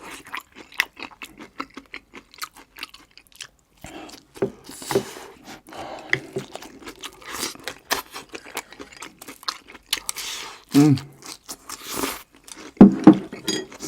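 A person chewing and crunching food close to the microphone, with many short crisp clicks and a couple of short hums about eleven and thirteen seconds in.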